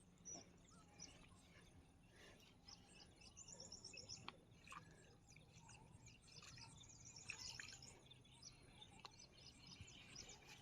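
Faint birds chirping and trilling over a quiet outdoor background.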